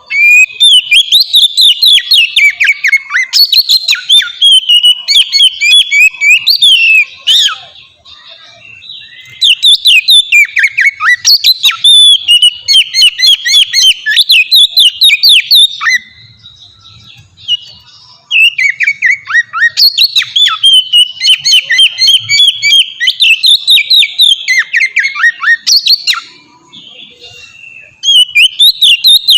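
Oriental magpie-robin (kacer) in full, open song: rapid, varied chirps and whistles strung into long phrases of about seven seconds each, three whole phrases with short pauses between and a fourth starting near the end.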